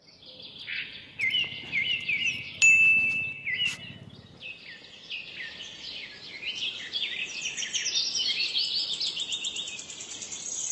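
Birds chirping and singing: many short, quick calls, some sliding down in pitch, with a couple of sharp clicks about three seconds in.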